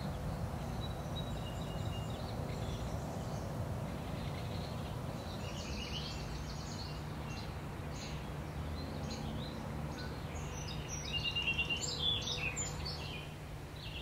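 Outdoor ambience of several birds chirping and calling over a steady low background rumble, with the calls busiest and loudest near the end.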